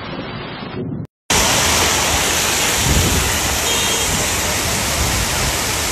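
Floodwater pouring down a stepped lane, cut off about a second in. Then a steady, loud hiss of heavy rain and rushing floodwater in a flooded street.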